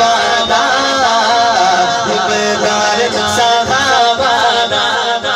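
A man singing a Punjabi devotional poem in praise of Farooq (Hazrat Umar) into a microphone, drawing the melody out in long wavering lines with held notes.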